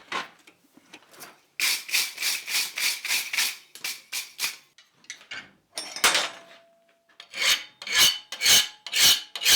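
Hand file scraping the steel finial of a forged hook in repeated back-and-forth strokes, about two a second. The strokes come in two runs with a short pause between.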